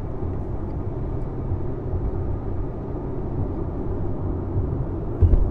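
Interior noise of a 2021 Chevrolet C8 Corvette Stingray cruising at about 58 mph in seventh gear: its mid-mounted 6.2-litre V8 and the road noise make a steady drone, with a brief low thump near the end.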